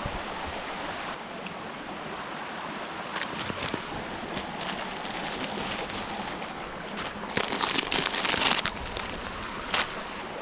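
Waterfall rushing steadily, with scattered short knocks and a louder, hissier rush lasting about a second near the end.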